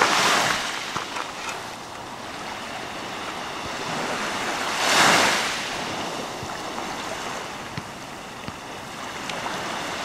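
Small sea waves breaking and washing up the shore, a surge of hiss about every five seconds, the strongest about halfway through.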